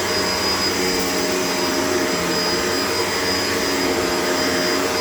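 Shark LA702 Lift-Away upright vacuum cleaner running steadily with a constant whine.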